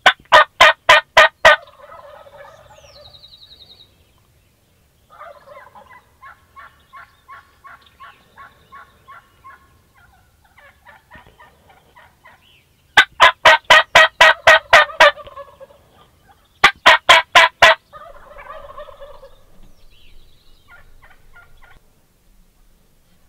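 Gould's wild turkey toms gobbling: three loud, rapid rattling gobbles, one at the start, one about 13 seconds in and a shorter one about 17 seconds in, with quieter repeated calls in between.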